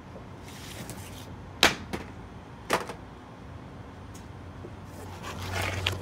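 Cardboard-framed pleated air filters being handled and pushed into an air handler's metal filter rack. There are two sharp knocks about a second apart near the middle, with scraping and rustling before them and again near the end.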